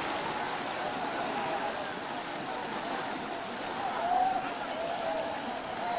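Sea surf washing onto the beach, a steady rush of waves, with faint distant voices calling out about two thirds of the way through.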